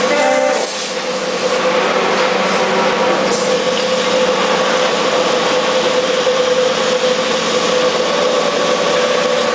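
Automated assembly-line machinery running: a steady mechanical din with a constant hum, and a short whine about half a second in.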